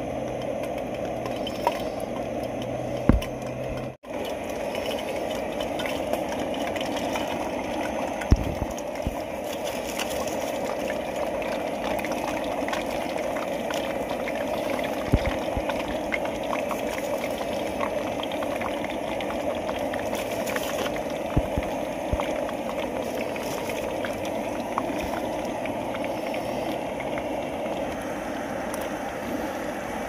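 Chips deep-frying in hot oil in a steel pot on a gas canister stove: a steady bubbling sizzle with occasional sharp pops, broken by a short gap about four seconds in.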